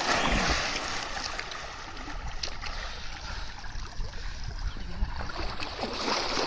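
Water sloshing and splashing, an uneven rushing with scattered small splashes.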